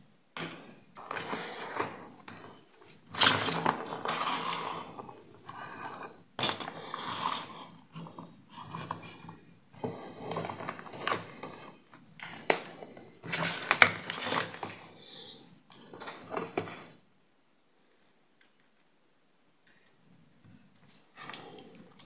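Hard plastic and metal parts handled on a workbench: irregular clattering, rubbing and scraping with sharp knocks, the loudest about 3, 6 and 13 seconds in, stopping about 17 seconds in.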